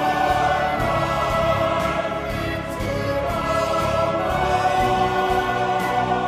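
Choir singing long held notes over orchestral music.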